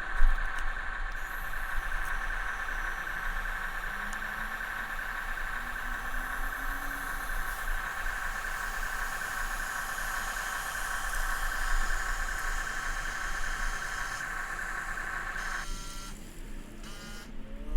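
Small electric motor of an RC model running with a steady whine, which stops about a second and a half before the end.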